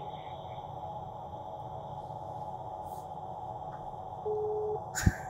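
Faint steady room hum while a mobile phone waits on a call, then one short telephone line-tone beep a little over four seconds in, followed by a click near the end.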